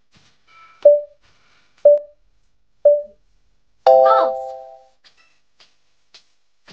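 Countdown sound effect: three short beeps a second apart, then a ringing chime about four seconds in that fades over a second, the cue that reveals the quiz answer.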